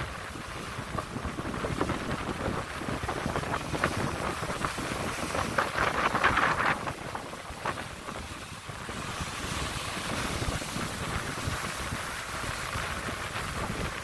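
Heavy sea surf crashing and churning over a rocky shore below sea cliffs, a continuous rush of breaking water. One wave breaks loudest a little past the middle, then the churning eases briefly and picks up again.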